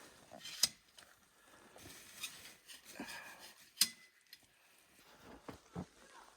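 Handling noises while a pop-up tent shelter is set up: scattered soft knocks and rustles, with two sharp clicks about half a second in and near four seconds in.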